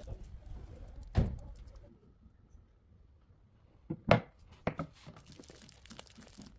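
Kitchen handling sounds: a sharp knock about a second in, then three knocks close together around four seconds in, the middle one loudest, followed by light crinkling rustle.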